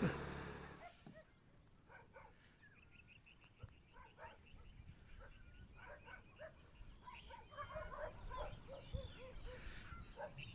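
A brief rush of noise fades out in the first second. Then come faint, scattered short animal calls, a string of small chirps that grows busier in the second half.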